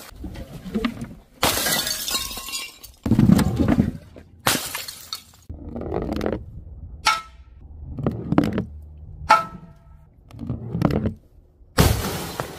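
A series of crashes of objects being smashed, with glass shattering: about nine separate impacts a second or so apart, a couple of them followed by a brief ringing. Near the end, a ball smashes into the glass screen of an old CRT television.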